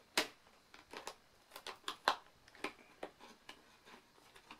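Fingernails picking and scratching at a security-seal sticker on a cardboard box: a dozen or so short, dry scrapes and taps at irregular intervals.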